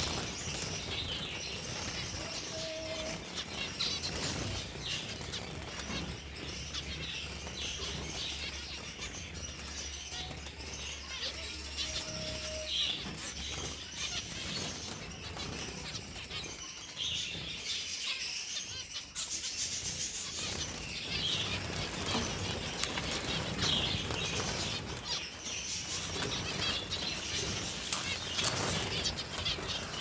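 A cage full of zebra finches: many wings flapping as the birds flutter about, with a steady chatter of short, high chirping calls throughout.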